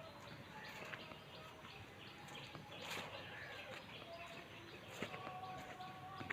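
Faint outdoor ambience of birds chirping and calling, with a few soft clicks.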